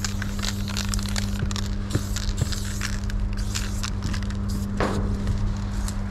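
Aerosol spray-paint can hissing in short bursts as a tag is sprayed, with one longer, clearer hiss near the end, over a steady low hum.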